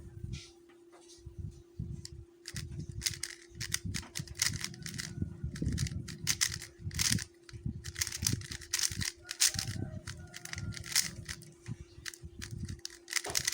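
QiYi MS 3x3 speedcube being turned fast in a timed solve: rapid plastic clicking and clacking of the layers in quick clusters, over a steady faint hum.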